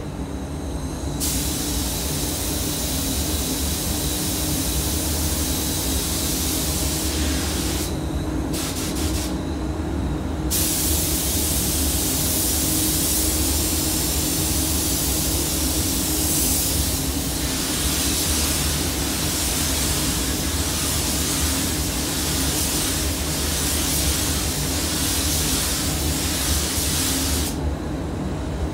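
Paint spray gun hissing with compressed air as basecoat is sprayed onto a car body panel. The trigger is let off briefly twice about a third of the way in, and again near the end. Under it runs the steady low hum of the spray booth's ventilation.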